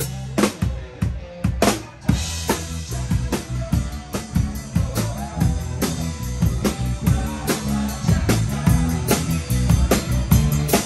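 Live rock band heard close to the drum kit. There are a few separate drum hits with the bass notes dropped out for about the first two seconds, then the full band comes back in with bass and a steady kick-and-snare beat.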